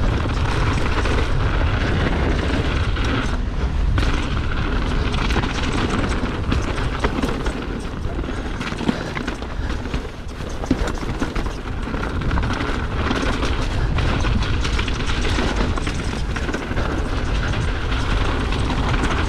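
Wind buffeting a helmet camera's microphone as a mountain bike rides down a gravel jump line, with tyres crunching over loose stones and many short rattles and knocks from the bike.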